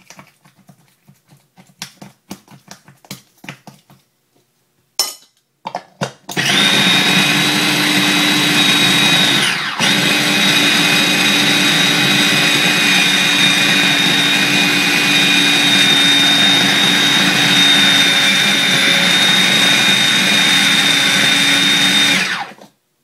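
Small food processor chopping a thick nut-and-banana mixture. After some light clicks and two short pulses, the motor runs steadily with a constant whine for about sixteen seconds, breaking very briefly about ten seconds in, then cuts off.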